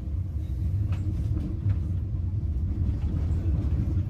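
Tram running along the street, heard from inside the passenger cabin: a steady low rumble with a few faint clicks.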